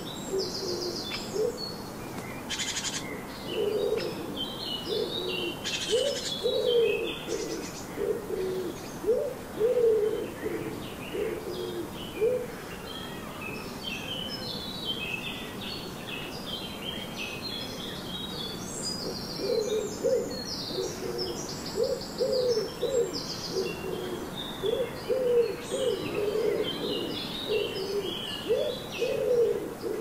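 Pigeons cooing in long runs of repeated low notes, pausing in the middle and starting again, while small songbirds chirp and sing in high, quick phrases.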